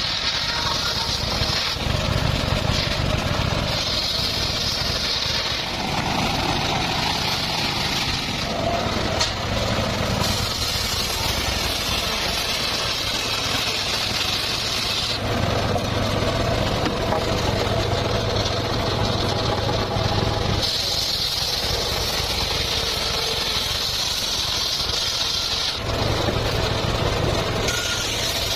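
Circular saw running steadily with a low hum, a high whine coming and going every few seconds as the blade makes its cuts.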